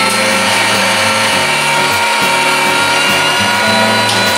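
Electric meat grinder running steadily as chicken meat is pushed down its feed tube with the plunger and minced, the motor humming and whining under load.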